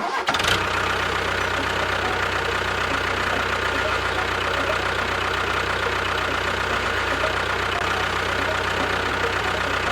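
A motor running steadily at an even pitch, starting just after the beginning.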